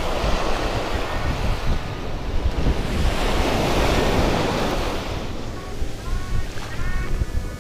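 Ocean surf breaking and washing up a sandy beach, swelling about three to four seconds in, with strong wind buffeting the microphone.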